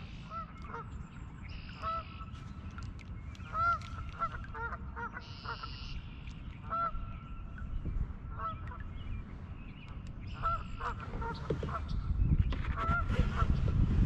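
Geese honking: a string of short, separate calls scattered through, with a low rumble growing louder near the end.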